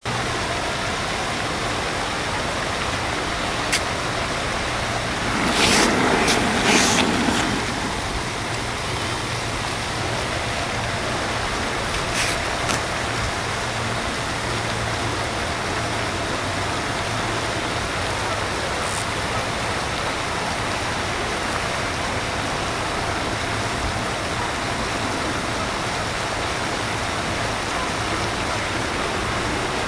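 Steady rushing outdoor background noise. A louder rustling stretch comes about six seconds in, and a few faint clicks are heard.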